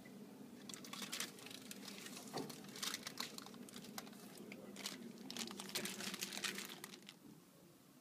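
Parchment paper crinkling and crackling as it is pulled out of a microwave with the crisped potato slices on it, in a run of irregular crackles that stops about a second before the end.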